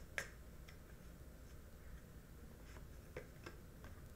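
Near silence: faint room tone with a low hum and a few soft, scattered ticks.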